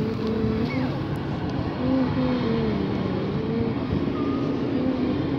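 Steady outdoor city rumble of engine noise, with a low hum that wavers slightly in pitch.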